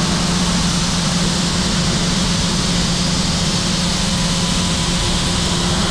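Heller CP 6000 five-axis machining center running a simultaneous 5-axis finishing pass with a ball end mill on a pump housing: a steady spindle hum over an even hiss.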